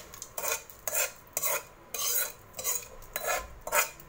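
A metal spoon scraping ghee tempering out of a metal kadai, in short strokes about twice a second.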